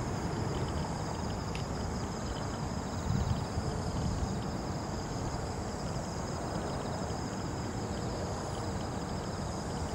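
Wind rumbling on the microphone, with a steady high-pitched insect trill running above it.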